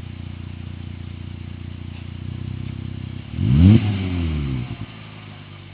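V6 Mercedes C230 with a resonator-deleted custom exhaust running steadily, then a single sharp throttle blip about three seconds in: the revs climb quickly and fall back to idle within about a second and a half.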